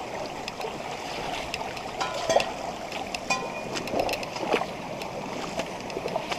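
Small spring-fed stream running steadily, with scattered short clicks and knocks.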